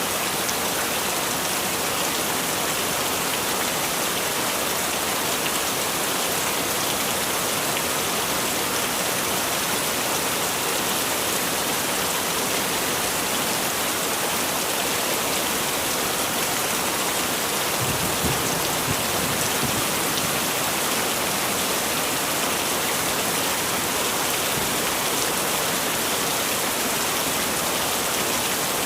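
Heavy rain falling steadily, an even hiss of drops on surfaces, with a brief low thud about two-thirds of the way through.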